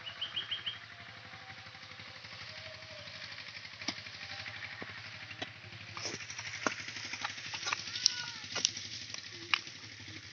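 Hand hoe chopping into grassy soil: a series of short, sharp strikes of the blade into turf and earth, about two a second from about four seconds in.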